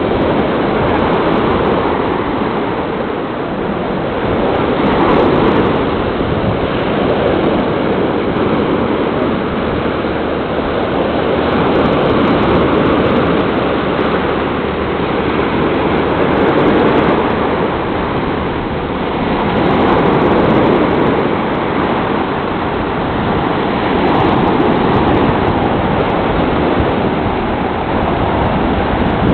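Rough sea surf, waves breaking and washing on the shore in a continuous rush that swells and eases every few seconds.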